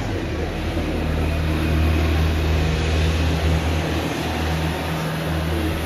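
A steady low rumble from a television playing in the room.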